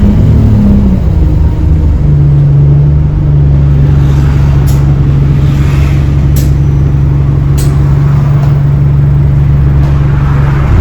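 On board an Alexander Dennis Enviro 200 bus: the electric-sounding axle whine falls in pitch as the bus slows in the first second or so, then the drivetrain holds a steady low hum with a few sharp clicks and rattles. A rising whine begins right at the end as it pulls away.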